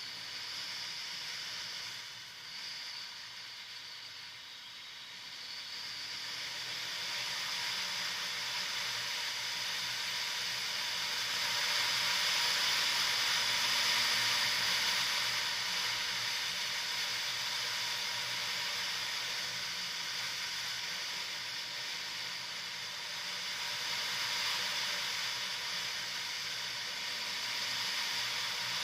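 Motorcycle ridden on a dirt track, heard as a steady hiss of wind and tyre noise over a faint low engine hum. It grows louder from about six seconds in.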